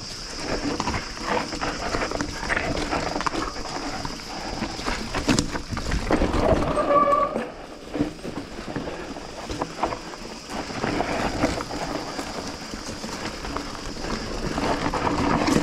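Mountain bike clattering down a rocky trail: tyres crunching and bumping over loose stones, with the frame and chain rattling in a dense, uneven run of knocks.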